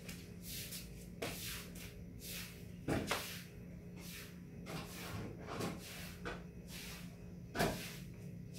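Kitchen handling sounds: a run of light brushing or scraping strokes with two louder knocks, about three and seven and a half seconds in, over a steady low hum.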